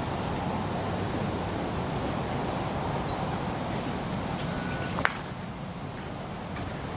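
A golf club strikes a ball off the tee about five seconds in: one sharp, ringing click of the tee shot. A steady background rush runs under it and drops a little after the strike.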